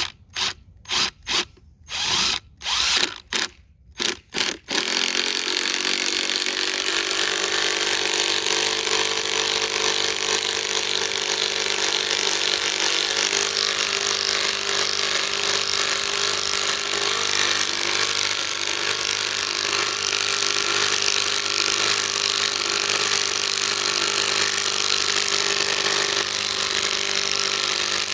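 Hart 20V cordless 3/8-inch impact wrench driving a long lag bolt into wood. It starts with a few short trigger bursts, then runs and hammers without a break for about twenty-three seconds as it sinks the lag.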